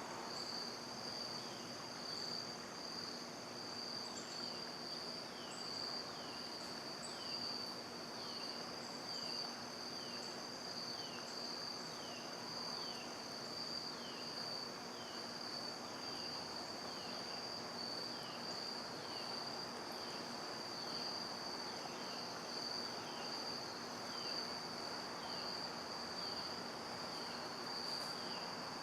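Crickets trilling in a steady, continuous high-pitched chorus, with short falling chirps repeating about every three-quarters of a second beneath it.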